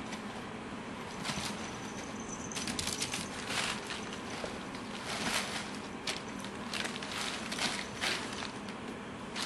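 Crumpled brown packing paper rustling and crackling in irregular bursts as kittens scramble and burrow through it.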